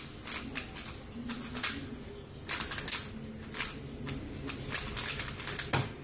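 Plastic 3x3 speedcube being turned fast during a speedsolve: rapid, irregular clicking and clacking of the layers. Just before the end comes a heavier thump as the solve finishes and the laptop's keyboard timer is stopped.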